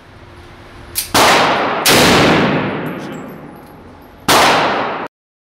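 Three rifle shots fired through a muzzle brake: two about a second in, less than a second apart, and a third near the end. Each is followed by a long echo, and the sound cuts off abruptly just after the third shot.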